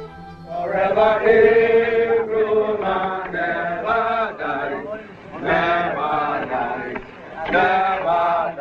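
Voices chanting in three phrases, the first long and the next two shorter, with brief breaks between them.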